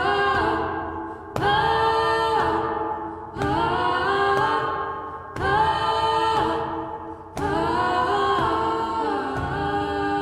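Wordless choir-style vocal music: sustained chords that come in sharply and fade, a new chord entering about every two seconds.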